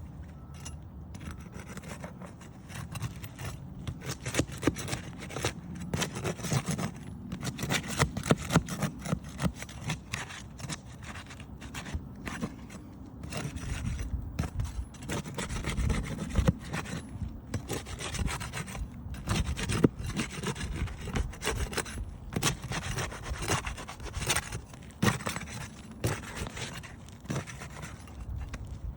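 Steel flat bar scraping and prying under asphalt roof shingles to break them loose and pull out the nails: a run of irregular scrapes, rubs and sharp clicks.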